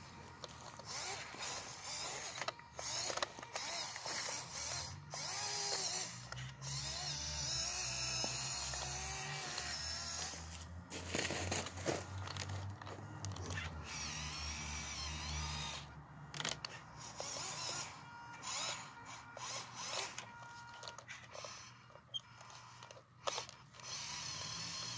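Upgraded electric motor and geared transmission of a modified WPL C24 1/16-scale RC truck whining as it drives, the pitch rising and falling with the throttle, with frequent clicks and clatter from the drivetrain.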